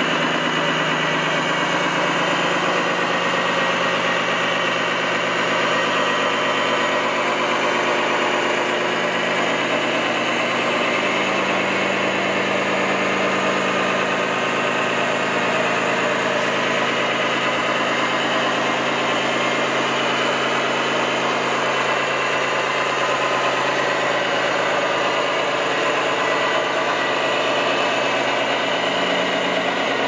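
Simulated diesel truck engine from a radio-controlled MAN truck's electronic sound unit, running steadily at low, idle-like revs as the truck creeps along.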